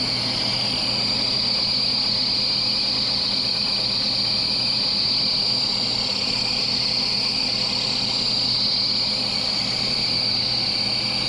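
Engine lathe running steadily while turning down a stainless steel bar: an even machine hum with a steady high whine over it.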